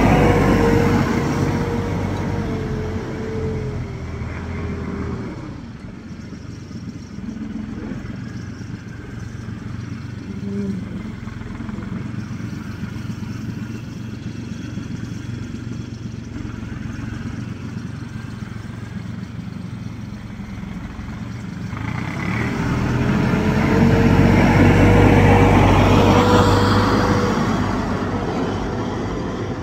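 Farm tractor engine running close by, with a steady whine over the engine note; it is loud at first, drops to a lower level through the middle, and grows loud again about three-quarters of the way through.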